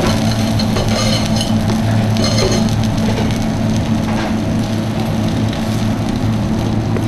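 Onion pieces sizzling on a hot stainless flat-top griddle over a steady low hum, with two short metallic clinks of tongs on the steel about a second and two and a half seconds in.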